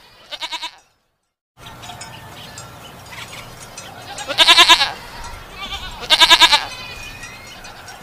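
Goats bleating: a short bleat right at the start, a moment of dead silence, then two loud, quavering bleats about two seconds apart.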